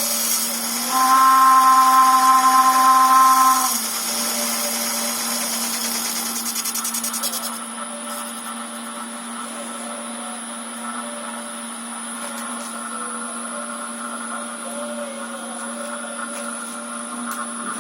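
Metal lathe's electric motor running on a VFD inverter, with the steady electrical whine that inverter drives give a motor. A louder, higher whine sits over it for about three seconds near the start, and the sound drops a little quieter about seven and a half seconds in.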